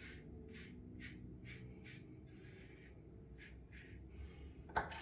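Timeless bronze safety razor scraping through lathered stubble in short, quick strokes, about two or three a second, soft and crisp. A sharp click comes near the end.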